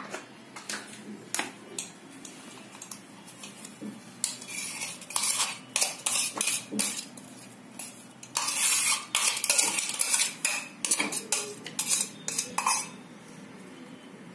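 A metal spoon scraping and tapping inside a stainless-steel mixer-grinder jar, emptying coarsely ground green peas into a bowl. It makes a string of sharp clinks and scrapes, busiest about eight to ten seconds in.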